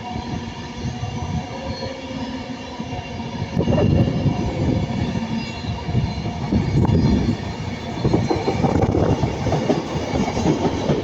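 Passenger train passing close by over jointed track: a steady hum of the traction with rumble and clattering wheels, growing louder about four seconds in.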